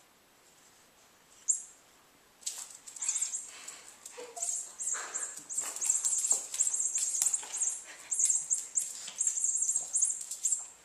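A cat toy rattling and jingling in quick, irregular bursts as a pet plays with it, starting about two seconds in after a single click.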